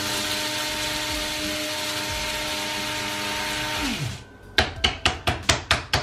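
Hamilton Beach Fresh Grind electric blade coffee grinder running steadily as it grinds whole dark-roast coffee beans, a pretty quiet whir. About four seconds in it winds down in pitch and stops. A quick run of sharp knocks follows near the end, louder than the grinding.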